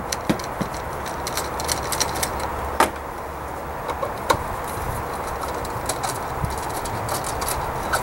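Irregular small metallic clicks and ticks of a hand tool working the 10 mm bolts on a Honda V6's plastic intake manifold cover, two sharper clicks a little under 3 s in and a little over 4 s in, over a steady low rumble.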